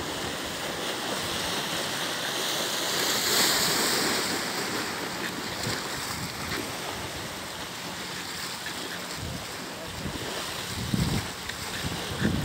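Sea waves washing against a concrete sea wall, with wind buffeting the microphone: a steady rushing noise that swells a few seconds in.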